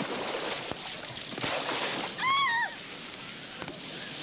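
Surf and splashing water from a swimmer struggling in the waves. A single shouted cry for help, rising then falling, comes about two seconds in and is the loudest moment.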